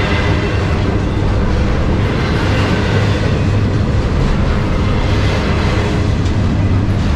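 Freight train of double-stack intermodal cars rolling past at speed: a steady, loud rumble of wheels on rail with a low hum underneath.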